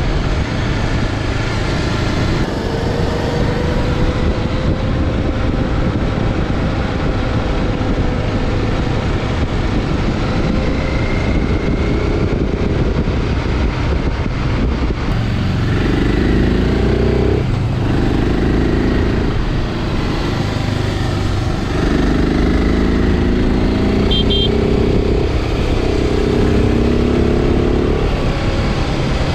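BMW G650 Xcountry's single-cylinder engine running while riding, over a steady rush of wind and road noise. In the first half the engine note climbs slowly; from about halfway it gets louder and rises and falls repeatedly, as with throttle changes or gear shifts.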